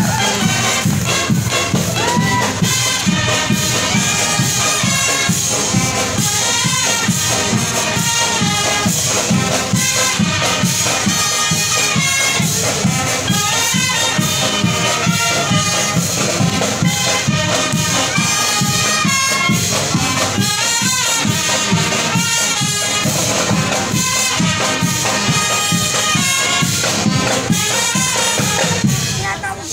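Marching band playing: clarinets, saxophones, trumpets and a sousaphone over a steady, even percussion beat.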